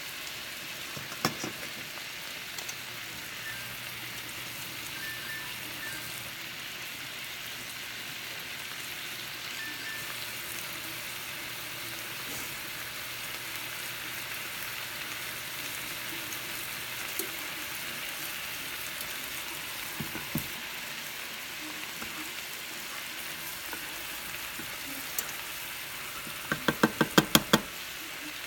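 Soyaki-marinated chicken tenders sizzling steadily in a stainless steel skillet. Near the end, tongs clack against the pan in a quick run of sharp clicks.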